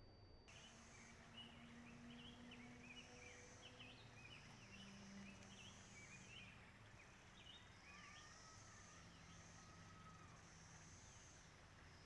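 Faint distant chorus of periodical cicadas, rising and falling in high-pitched swells every second or two, with scattered short bird chirps over it.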